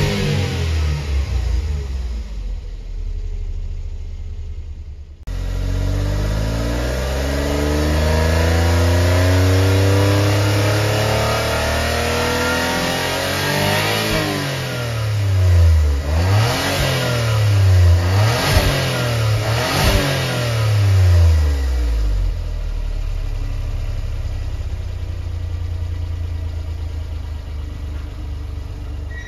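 Suzuki Jimny JB23W's K6A 660 cc turbocharged three-cylinder engine revving in Park. It falls from high revs, is held high again after a sudden break about five seconds in, and is then blipped up and down several times. It settles to a steady lower speed for the last several seconds.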